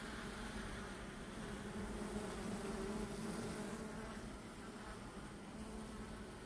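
A steady buzzing hum.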